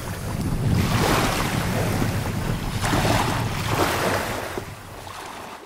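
Small waves washing onto a sandy shore, swelling twice, with wind rumbling on the microphone; the sound fades away near the end.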